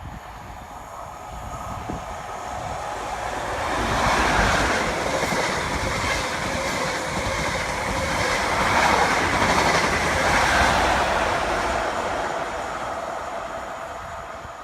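A train passing along the track, the noise of its wheels on the rails swelling over the first few seconds, holding loud through the middle, then fading away near the end.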